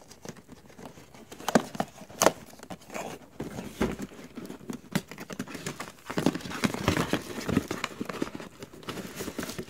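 Cardboard retail box being handled and opened by hand: fingers tapping and scraping on the card, the end flap pulled open, with two sharp knocks about one and a half and two seconds in and steadier scraping and rustling near the end.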